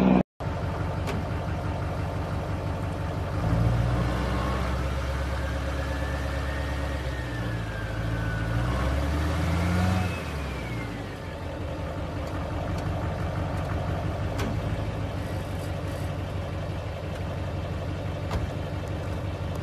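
Pickup truck engine running, rising in speed about three and a half seconds in, with a whine that climbs and falls in pitch until it settles back about ten seconds in.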